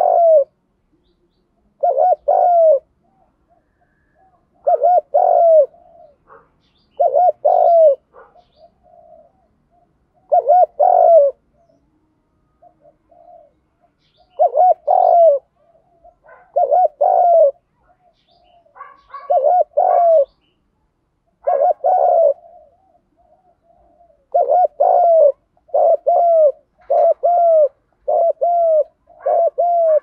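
Spotted dove cooing in repeated short phrases of about a second each, the 'gù đấu' challenge-style coo. The phrases come every two to three seconds and crowd closer together near the end.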